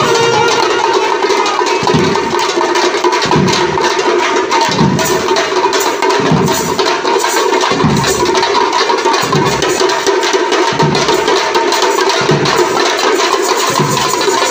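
Tamil parai frame drums beaten with sticks in a fast folk-dance rhythm, with a large barrel drum booming about every second and a half. A steady held tone runs underneath the drumming.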